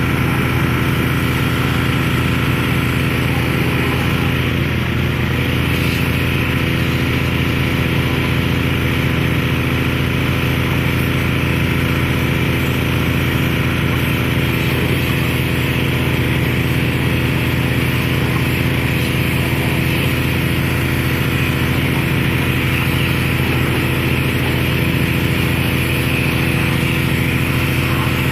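An engine running steadily at one constant speed, its pitch and level unchanging.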